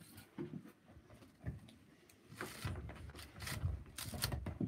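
A latex punch balloon handled and bumped close to the microphone: scattered soft thumps and rubbing, with a few sharp clicks, growing busier about halfway through.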